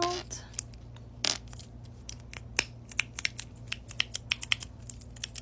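Clicky fidget keychain being pressed over and over: sharp plastic clicks, a few spaced apart at first, then a quicker run of several a second near the end.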